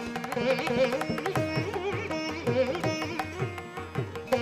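Instrumental background music in South Indian classical style: a string melody with sliding, bending notes over low notes that glide downward.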